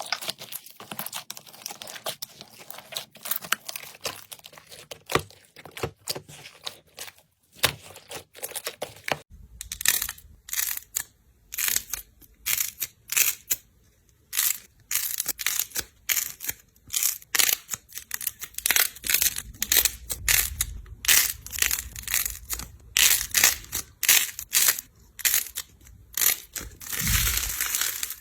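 Slime being pressed and worked by hand, giving rapid crackling and popping clicks. About nine seconds in the sound changes abruptly to a sharper, louder run of crackles.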